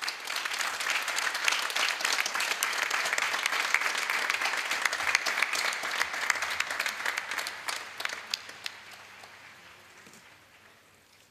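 Large crowd applauding, the clapping dying away over the last few seconds.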